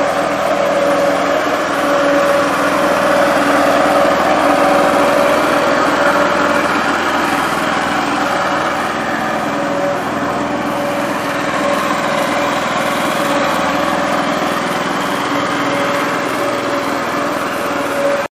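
Small petrol engine of a walk-behind artificial grass brush machine running steadily at working speed, with a constant engine drone.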